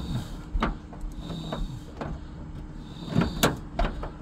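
Scattered sharp plastic clicks and knocks from hands working the license-plate light housing into its opening in the car's trunk lid, the loudest a little past three seconds in.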